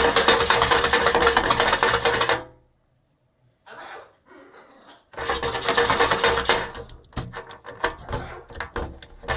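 A parrot shaking a shell so that it rattles, a racket of fast, dense clattering. It comes in two bursts, one lasting about two and a half seconds and another starting about five seconds in, followed by scattered separate rattles and knocks.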